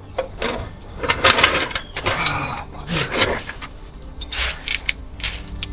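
Irregular clinks, clatters and rustles of fuel pump parts and fuel lines being handled.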